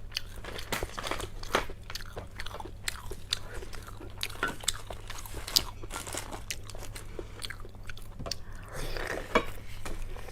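Close-miked eating: a person biting and chewing food, with many irregular sharp crunchy clicks.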